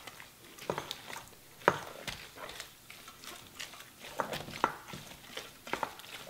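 Spatula stirring chopped salsa vegetables in a stainless steel mixing bowl: irregular scrapes and taps of the spatula against the metal, several in a second.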